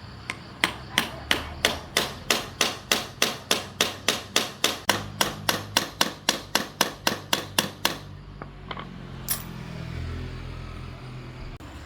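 A hammer striking in a steady rhythm, about three blows a second, over twenty blows in all, then stopping; one more blow follows a little over a second later.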